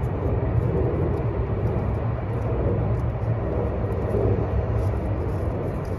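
A steady low rumble of a vehicle.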